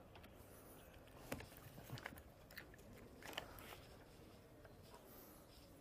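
Near silence: room tone with a few faint clicks and taps.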